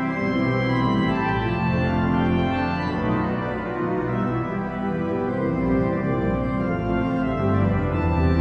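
Organ music playing sustained chords, with the low notes changing every second or so.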